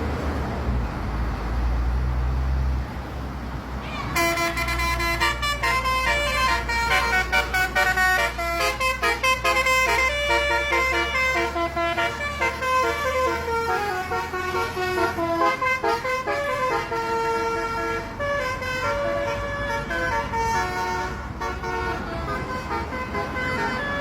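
Bus engine running low, then from about four seconds in a multi-tone telolet bus horn plays a fast melody of short, changing notes.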